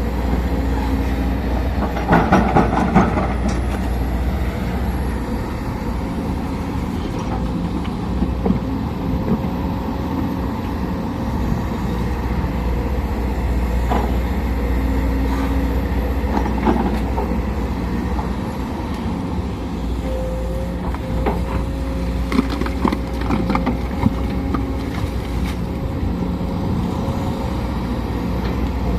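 Sumitomo SH210 excavator's diesel engine running steadily under load, with a steady hydraulic whine. Scattered metallic knocks and rattles come about two seconds in, twice in the middle, and in a cluster near the end as it works.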